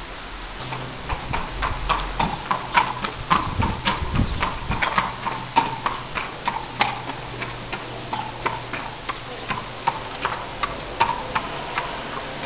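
A horse's hooves clip-clopping on a hard tarmac yard as it is led at a walk, a run of sharp, uneven clops two or three a second, starting about half a second in.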